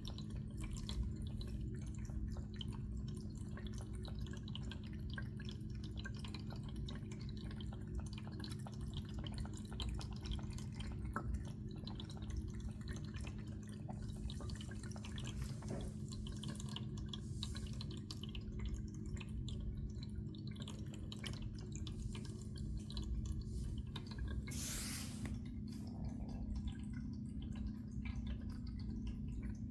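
Cat lapping water with its tongue: a steady run of small, quick wet laps.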